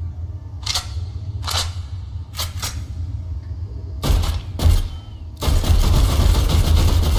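Machine pistol gunfire: a handful of separate shots, a second or so apart, then from about three quarters of the way in a long burst of rapid automatic fire. A steady low hum runs underneath.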